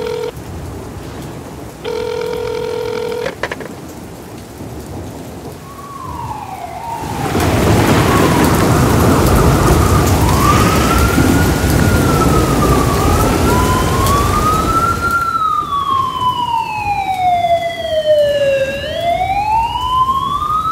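Two long electronic beeps near the start. Then the heavy rush of pouring rain comes in about seven seconds in, with an emergency vehicle's siren wailing in slow rising and falling sweeps. The siren is alone and clearest in the last few seconds.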